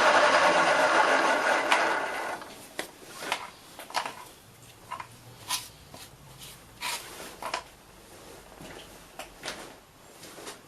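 A machine tool's motor running, then winding down and stopping about two seconds in. After it, scattered light clicks and knocks follow, roughly one a second, from parts and tools being handled.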